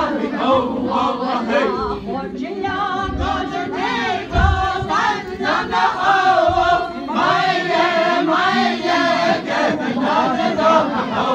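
A group of voices singing together in unison, a Navajo shoe game (Késhjéé’) song with wavering, sliding melody lines. A dull low thump comes about four and a half seconds in.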